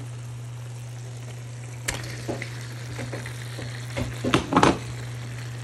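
Shrimp and eggplant sizzling in a frying pan as they are stirred together. A utensil knocks and scrapes against the pan a few times, most busily a little after four seconds in.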